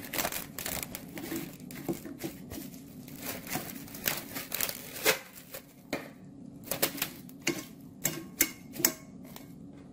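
Plastic cling film crinkling and crackling as it is pulled off the roll, stretched over a glass bowl and pressed down around the rim. There are irregular sharp crackles throughout, the loudest a few seconds before the end, over a steady low hum.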